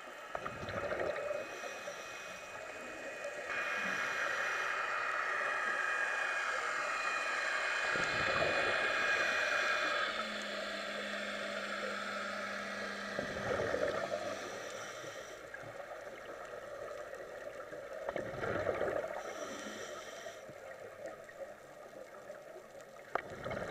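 Scuba regulator breathing heard underwater: exhaled bubbles burble up in swells every five seconds or so, with a steady hiss between them.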